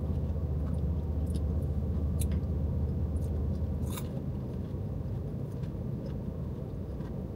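A person chewing food close to the microphone, with a few soft clicks and crunches, over a steady low hum inside a car.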